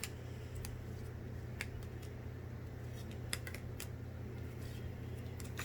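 Faint, scattered clicks and taps of Pokémon trading cards being handled and sorted, over a steady low hum.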